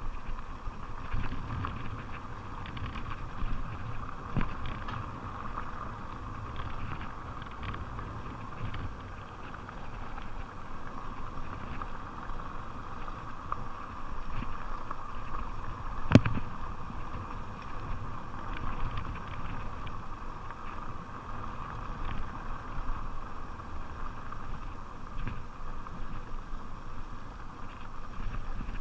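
Fuji Beartooth 27.5+ mountain bike descending a rough dirt track: steady rolling noise from the plus-size tyres with the bike rattling over bumps and a low rumble. One sharp knock about sixteen seconds in is the loudest moment.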